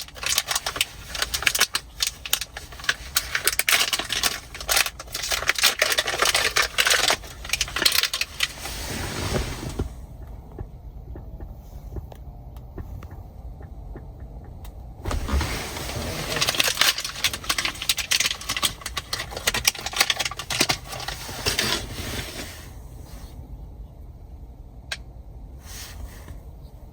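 Hands and tools working small metal and plastic parts in a car's steering column, with bursts of clicking, rattling and scraping as the shift interlock solenoid is worked loose.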